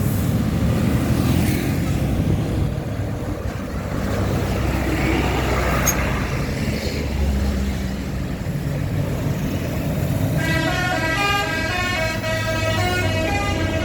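Bus engine and road noise, then from about ten seconds in a multi-tone "telolet" musical bus horn plays a quick tune of stepping notes.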